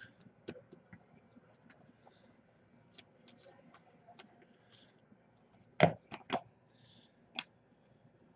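Scattered light clicks and ticks from handling trading cards and packs on a table, with a few louder sharp knocks about six seconds in and one more shortly after.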